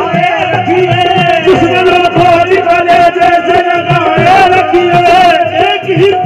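Live qawwali music: a harmonium holding steady tones over a quick hand-drum beat, with a male voice drawing out a long wavering line through the middle.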